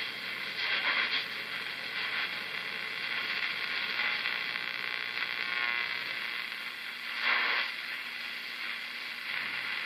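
Westinghouse Model 504 AA5 tube radio tuned between AM stations, giving steady static and hiss. A brief louder swell comes about seven seconds in, and a faint low hum runs through the second half.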